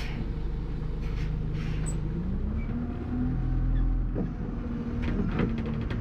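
Bus engine and drive noise from on board a moving bus: a steady low hum whose pitch rises about two seconds in and then holds higher, with a few short knocks or rattles a little after the middle.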